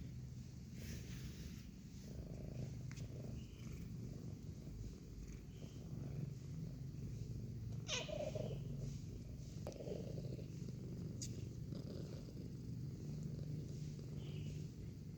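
Domestic cat purring steadily, with a brief falling squeak about eight seconds in.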